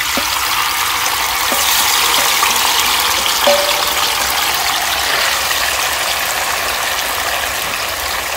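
Tofu frying in hot oil in a pan: a steady sizzle.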